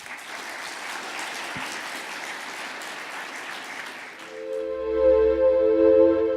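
Audience applauding for about four seconds, then a held synthesizer chord with a low bass note takes over as outro music.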